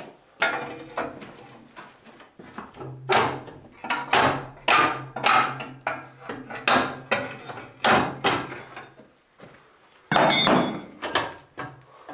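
Repeated hammer knocks on a steel adjustable prop under a wooden beam, about two a second, with a low ring under them. Near the end comes a longer, ringing metallic scrape.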